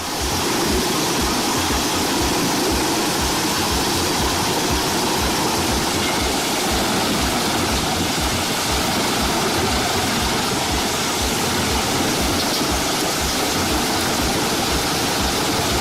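Biber 92 wood chipper running and chipping wood: a steady, dense rushing noise with a regular low thumping underneath.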